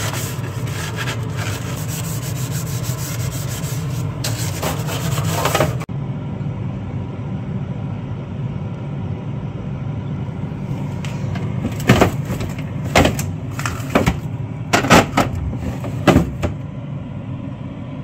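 A stiff plastic-bristled cleaning brush scrubbing the corners of a plastic freezer drawer in quick scraping strokes. The scrubbing stops about six seconds in, giving way to a steady low hum with several short sharp knocks and rustles a few seconds from the end.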